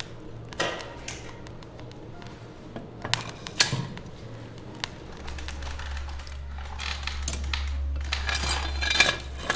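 Metal fire tongs clinking and scraping against the iron door and firewood of a wood-fired brick stove's firebox as burning logs are pushed in, with scattered sharp knocks and a longer stretch of scraping near the end.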